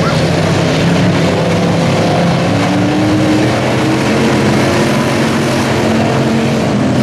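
Several dirt-track race car engines running at speed around an oval, heard together as a loud, steady mix of engine notes at different pitches over a wide rush of noise.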